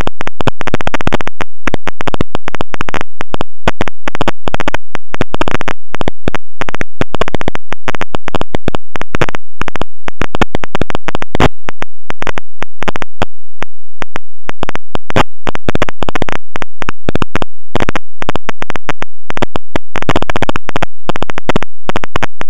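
Harsh digital buzzing and crackling at near full volume that never lets up, with no recognisable sound in it: a corrupted or badly clipped audio track.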